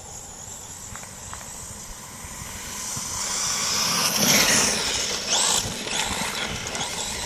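1/8-scale brushless electric RC truggy driving on grass: a high motor whine with tyre hiss, swelling as it comes close and loudest about four seconds in.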